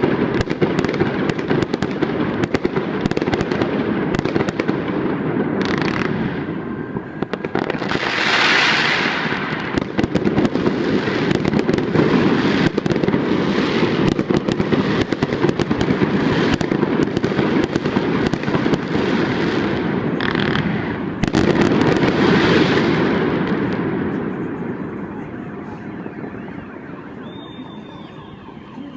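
Fireworks going off in a rapid, continuous barrage of pops and crackles, thinning out and fading away over the last few seconds.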